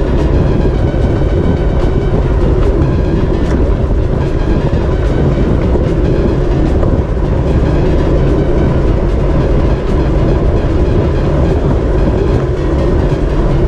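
Steady rush of wind over the microphone of a bicycle racer's camera at race speed, with road and bike noise underneath and a few faint clicks.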